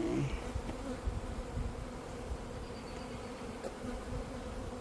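A swarm of honeybees buzzing in a steady hum around an open hive, a freshly installed package of bees flying and settling.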